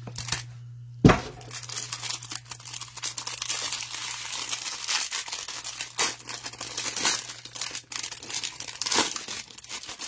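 Packaging of a trading-card hanger box being torn open and crinkled by hand, a continuous crackle with sharper rips, after a sharp knock about a second in.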